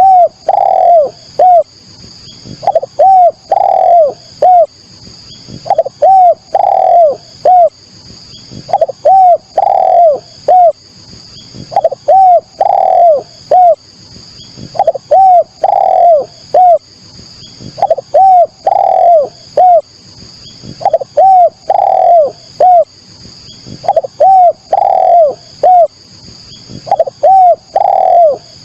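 Spotted dove (derkuku, tekukur) cooing loudly: the same short phrase of several coos, one longer and fuller than the rest, repeats about every three seconds. It is a lure call meant to set other doves calling. A faint steady high ringing runs behind it.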